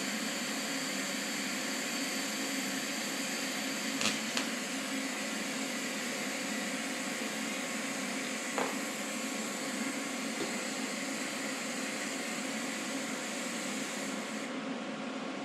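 Steady buzzing hiss of a TIG welding arc from a Vulcan OmniPro 220 inverter welder, with a few light clicks along the way. Near the end the highest hiss drops away.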